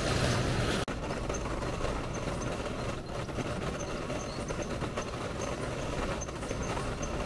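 Small wheels of a hand-pushed cart rolling over road pavement, giving a steady rattling rumble.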